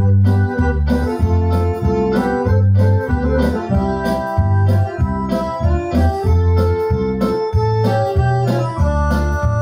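Instrumental tune played on a Roland digital accordion, with an organ-like tone holding sustained chords and melody over a pulsing bass beat.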